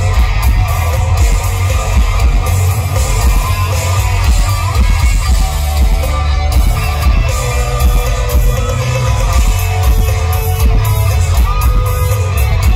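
Live rock band playing an instrumental passage: distorted electric guitars over bass and drums, loud and steady.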